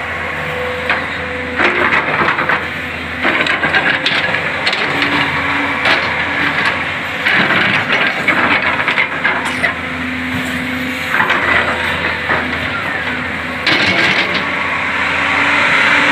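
JCB backhoe loader's diesel engine running, with repeated bursts of scraping and clattering from the bucket working material, each lasting a second or more.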